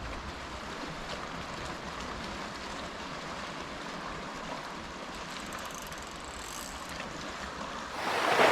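Sea washing over rocks as a steady hiss, with a louder wave surging in near the end.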